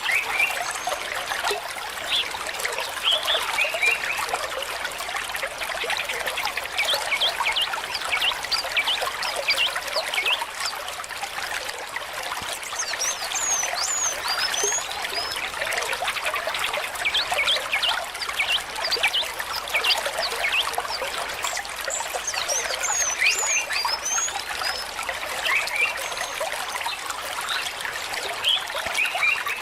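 Steady trickling water, dense with small splashes, with bird chirps over it and two short bursts of high twittering, a little before halfway and again about three-quarters through.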